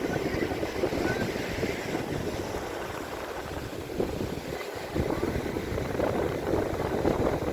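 Sea wind buffeting the microphone in uneven gusts over the wash of the surf.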